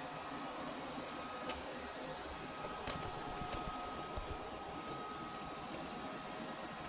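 Vorwerk VR100 (Neato XV11) robot vacuum cleaning: a steady motor whir with a high whine and a steady tone, broken by a few sharp clicks.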